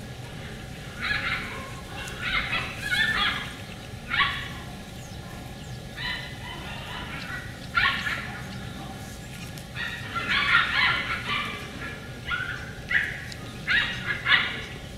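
Puppies yapping and yipping in short, high-pitched clusters, again and again.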